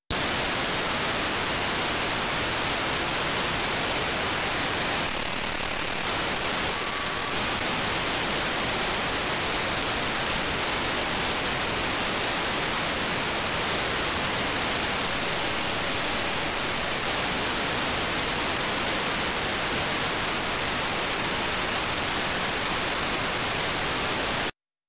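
Steady FM receiver hiss from an SDR's demodulated audio, with no station programme coming through. It cuts out near the end.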